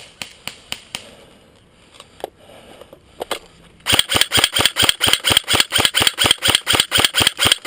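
Airsoft electric rifle, a G&G blowback AK47, firing on full auto in a long, loud burst of about ten shots a second, starting about four seconds in. Before it come fainter, scattered single airsoft shots.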